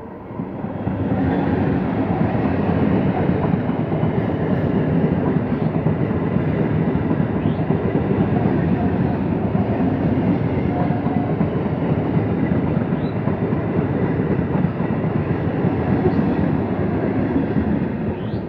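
Electric multiple-unit local train running past close by: a steady, loud rumble of wheels on the rails that swells about a second in and drops away near the end as the last coaches go by.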